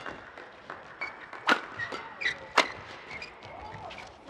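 Badminton rackets striking the shuttlecock in a fast doubles rally: sharp cracks, the loudest two about a second apart, with short squeaks of court shoes between the hits.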